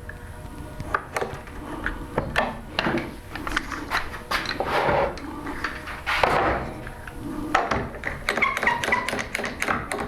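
Irregular taps and knocks of wood and tools being handled on a workbench, with a couple of short scraping or rubbing passes midway and a brief squeak near the end.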